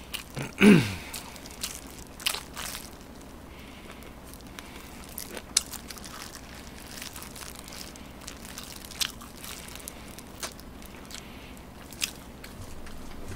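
Close-miked eating of fried chicken: scattered crunchy bites and chewing, with a short voice sound that falls in pitch about a second in.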